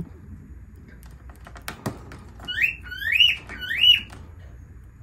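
Lovebird in a wire cage giving three loud rising chirps in quick succession, about halfway through. Before them come a few sharp clicks as it bites at the cage wire.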